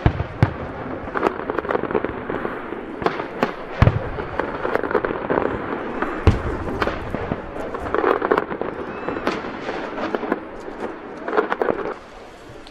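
Aerial firework shells bursting: deep booms a few seconds apart, near the start, about 4 s in and about 6 s in, amid a steady run of sharp pops and crackling. The noise thins out near the end.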